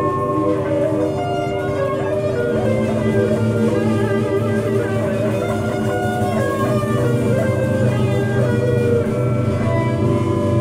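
Instrumental psychedelic band jam led by electric guitar, with long sustained notes over a steady bass.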